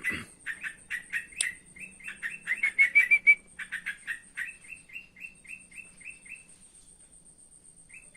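Yellow-vented bulbul (trotokan) giving rapid chattering calls of short notes, about five a second. The calls stop about six and a half seconds in and return near the end. A faint, steady, high-pitched ticking runs behind them.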